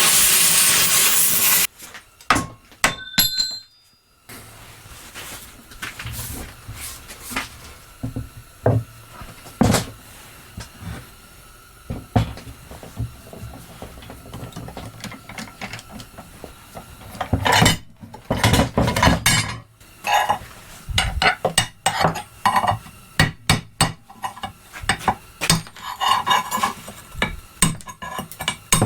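A cutting torch hissing loudly, shut off a little under two seconds in. It is followed by scattered metallic clanks, knocks and clinks of steel plate and tools being handled, busiest in the second half.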